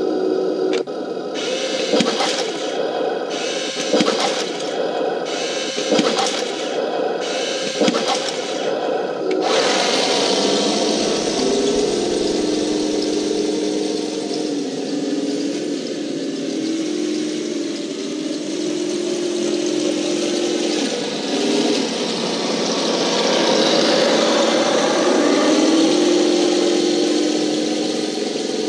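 Radio-controlled Walker Bulldog light tank: a sharp crack about every two seconds for the first nine seconds, then its electronic engine sound and drive motors running as it drives, the engine tone stepping up and down in pitch.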